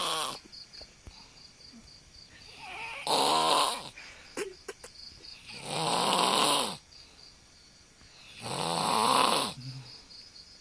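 A teenager snoring loudly and harshly, with a rough, beast-like snore. Three full snores about every three seconds, each lasting about a second, plus the tail of one at the very start.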